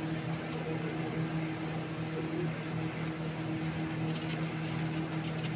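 A steady low mechanical hum, even in pitch and level, with a few faint clicks about two-thirds of the way through.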